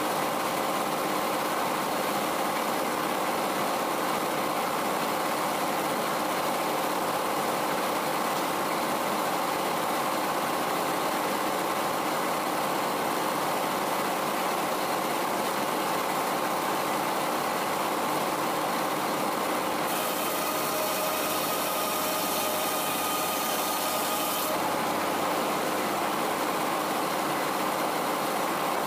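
00 Frick circular sawmill running: its engine power unit and big circular blade make a loud, steady mechanical drone. For about four seconds near the end a higher hiss with a whine joins it, as the blade cuts through the chestnut oak.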